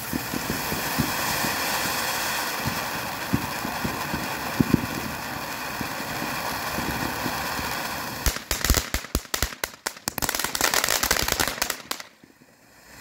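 TNT Magic Seashell fan fountain firework burning: a steady hissing spray of sparks with a few single pops. From about eight seconds in it breaks into rapid, dense crackling, which falls away just before the end.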